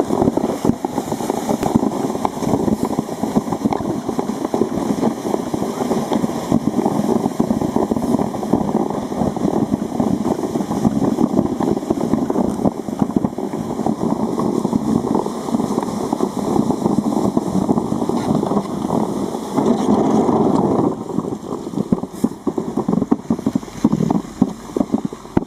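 Sledge sliding fast over packed snow and ice: a continuous rough scraping rumble that turns choppier near the end.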